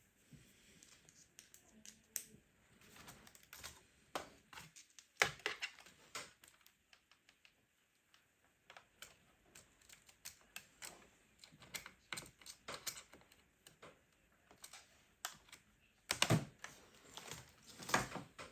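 Scattered plastic clicks, taps and rattles of a Dell Latitude D610 laptop keyboard being pried loose with a flathead screwdriver and handled, with two louder clatters near the end.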